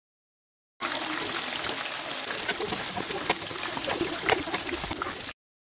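Thick curry sauce with tempeh simmering in a pot: a steady sizzle with many small crackles and pops. It cuts in about a second in and cuts off abruptly shortly before the end.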